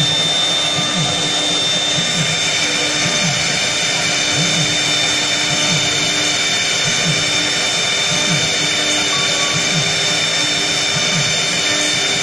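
CNC router engraving granite: its HSD 4.5 kW air-cooled spindle whines at a steady high pitch while the small bit grinds into the stone. Underneath, a low sound rises and falls roughly once a second.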